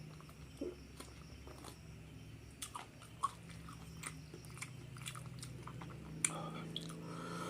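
A person chewing and biting a meal of crispy fried duck and rice close to the microphone, with scattered short crunches and mouth clicks over a low steady hum.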